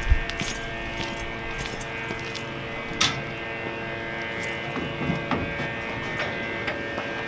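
Sharp clicks and clacks of a Kenworth truck's tilt hood as its side latches are released and the hood is pulled forward to open, over steady background music. The sharpest click comes about three seconds in.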